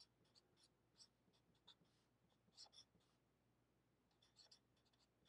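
Faint squeaks and scratches of a felt-tip marker writing on paper: a series of short, irregular strokes as symbols are written.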